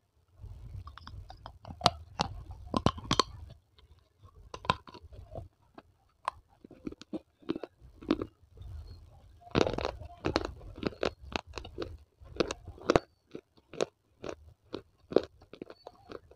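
Small pieces of baked clay (tiny clay-pot items such as a saucer, mini pot and diya) being bitten and chewed close to a clip-on microphone. Sharp cracking bites and gritty crunches come in a continuous series, with a dense run of crunches about nine to ten seconds in.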